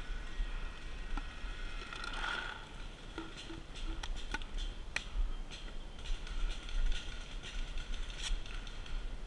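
Paintball markers firing across the field: scattered sharp pops at uneven intervals, a few close together near the middle, over a low steady rumble of wind or handling on the microphone.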